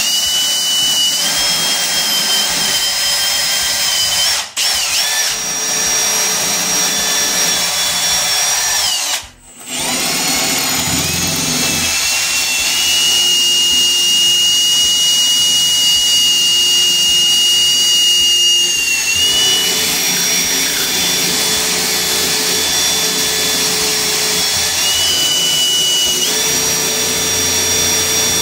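Cordless drill running a multi-material bit into floor tile: a steady high motor whine. It stops briefly about four and a half seconds in and again about nine seconds in, and its pitch shifts slightly a few times as the bit bites.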